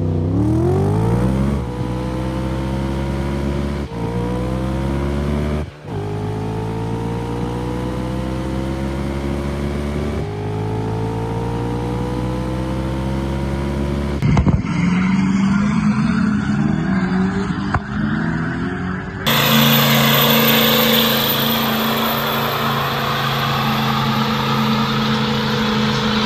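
A vehicle engine accelerating hard through the gears: its pitch climbs and drops back at each of four shifts. About 14 seconds in the sound cuts to a different stretch of engine noise, and about 19 seconds in to an engine running at a steady speed under a loud hiss.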